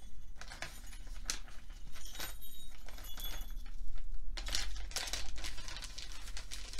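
Packaging bag crinkling and rustling as it is handled and opened, with small jingle bells clinking and jingling inside it. The crinkling is densest about four and a half seconds in.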